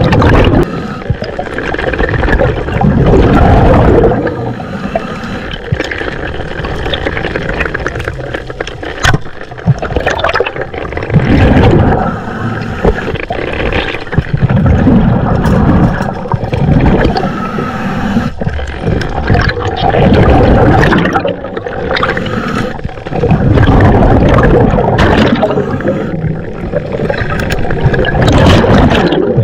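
Underwater sound at a spearfisher's camera: muffled water rushing and bubbling in loud surges every few seconds, with a few sharp clicks and knocks in between.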